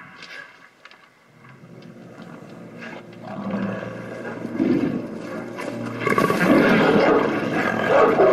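Movie soundtrack: deep, snarling growls of a mutated monster dog over tense film score, starting faint and building to loud over the last couple of seconds.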